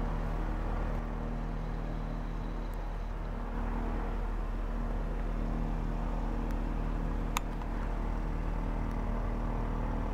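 An engine running steadily at idle, a constant even drone, with one sharp click about seven seconds in.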